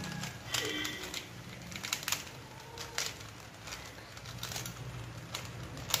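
Plastic 3x3 Rubik's Cube being solved by hand: its layers turning and snapping into place in irregular clicks and clacks, about one or two a second, the sharpest near the end.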